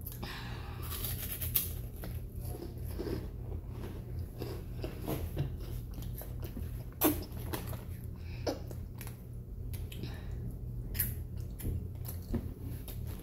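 A person chewing hot Cheetos, with sharp crunches scattered through and the loudest about seven seconds in, over a steady low hum.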